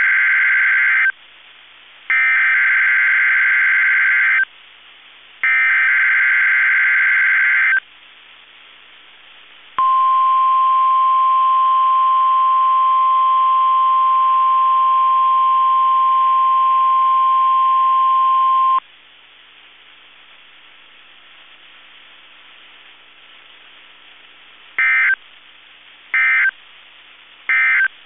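NOAA Weather Radio EAS/SAME test alert from station KEC65 over a web stream. Three screeching digital header bursts come a second apart, then the steady 1050 Hz weather-radio warning alarm tone sounds for about nine seconds. After a few seconds of hiss, three short end-of-message data bursts close the alert.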